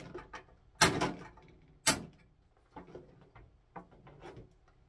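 Hammer tapping a punch to drive the last screw out of a wooden handsaw handle: two sharp metallic taps about a second apart, then a few faint small clicks and rattles.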